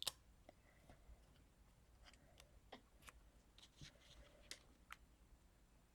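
Near silence with faint, scattered light clicks and rustles of paper and sticker sheets being handled.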